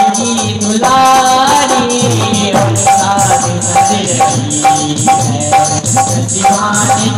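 Live bhajan music: tabla playing a steady rhythm under a sustained melody line, with a shaken rattle.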